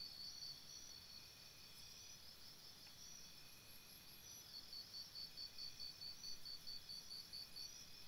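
Faint chorus of forest insects such as crickets: a high, rhythmic pulsing chirp at about five pulses a second. It weakens for a few seconds after the start and comes back stronger about four seconds in.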